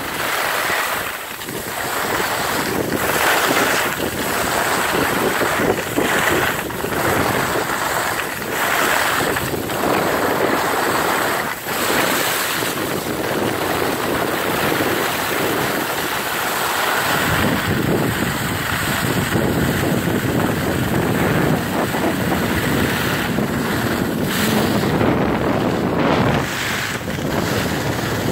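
Steady wind rushing over the microphone mixed with the hiss and scrape of skis sliding on packed snow as the camera moves downhill. The noise turns deeper and fuller about two-thirds of the way through.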